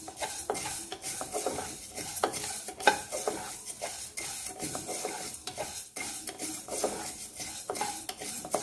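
Wooden spatula stirring fenugreek and coriander seeds as they dry-roast in an empty kadhai: the seeds rattle and skitter across the pan's metal with a steady stream of irregular clicks and scrapes.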